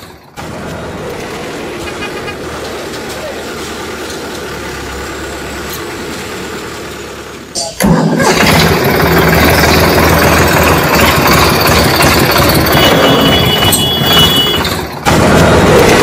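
Truck engine running steadily, cutting abruptly to a louder engine sound about 8 seconds in and again near the end.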